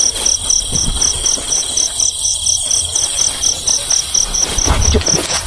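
Night insects, crickets, chirping in an even rhythm of about four high pulses a second over a continuous high trill. A low bump or rustle comes near the end.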